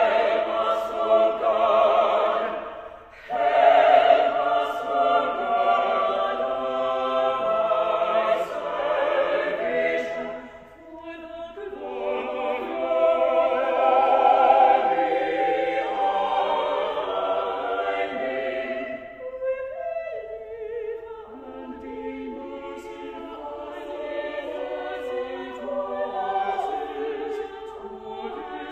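Small mixed choir of women's and men's voices singing together in sustained chords. The sound drops briefly about eleven seconds in and is softer through the last third.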